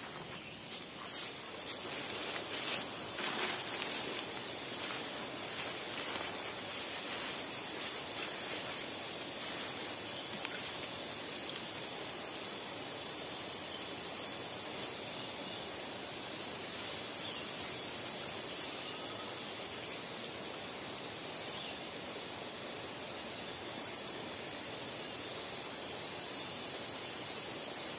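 Steady high hiss of insects in the undergrowth, pulsing faintly and regularly, with rustling and a few light knocks in the first few seconds.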